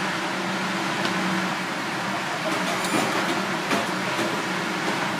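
Steady roar of a busy stove under a wok of mushroom broth at a rolling boil, with a low hum running beneath it. There are a couple of light clicks of a utensil against the pan about three seconds in.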